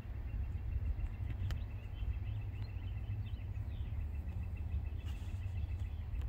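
Birds chirping over a steady low rumble.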